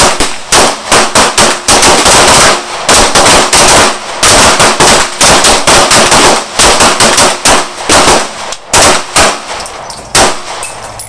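Several pistols firing at once: a loud, rapid string of overlapping gunshots that starts abruptly and thins out near the end.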